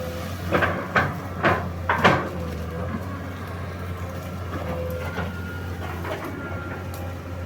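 Excavator engine running steadily, with four loud sharp knocks about half a second apart in the first two seconds.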